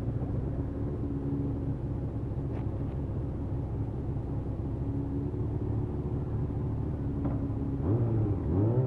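Vehicle engine running steadily while on the move, a constant low hum. Near the end its pitch dips and rises again.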